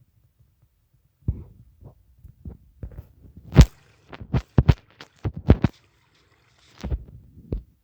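A series of about a dozen irregular knocks and thumps, sharp and close, the loudest about three and a half seconds in.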